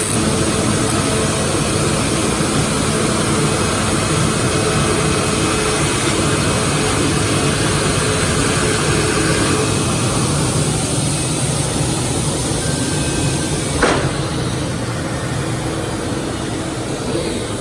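A powered milling cutter cutting MDF, a steady loud machining noise with faint humming tones. A single sharp knock stands out about fourteen seconds in.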